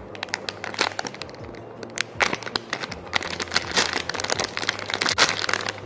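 Clear plastic packaging bag crinkling and crackling as it is handled, with many quick irregular crackles over a faint low hum.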